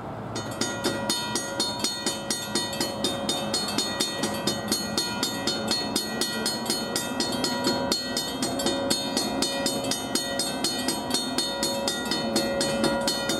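Railroad grade-crossing warning bell starting up just after the start and ringing steadily at about three to four strokes a second. The crossing is activated for an approaching train.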